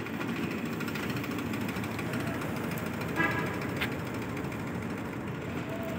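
Steady city street noise, a general traffic rumble, with a brief higher-pitched sound about three seconds in and a sharp click just after.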